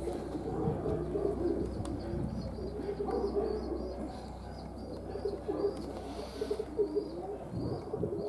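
Pigeons cooing close by, in soft, pulsing, repeated phrases. A quick run of high chirps sounds over the first few seconds.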